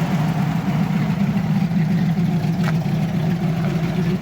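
1965 Ford Mustang engine idling steadily, with one brief click about two and a half seconds in.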